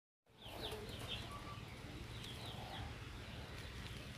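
Birds chirping in short high bursts, in two clusters, over a steady low rumble.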